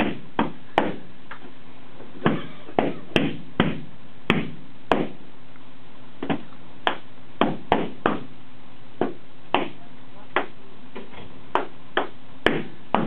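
Latex balloons being popped one after another with a pin: about twenty sharp bangs at irregular spacing, roughly one or two a second.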